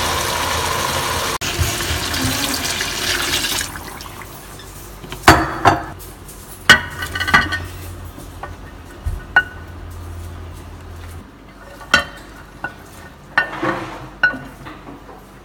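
Red wine hissing and bubbling hard in a hot enamelled cast-iron pot as the alcohol cooks off, a loud steady hiss that stops about four seconds in. Then diced rutabaga and sweet potato are scraped off a ceramic plate into the pot with a wooden spoon: a string of sharp clicks and knocks of spoon on plate and pot, with cubes dropping in.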